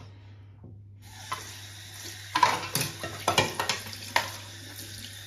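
Clicks and light knocks of shower mixer parts being handled, about half a dozen sharp ones spread through the middle seconds, as the cover plate is got ready to go back on.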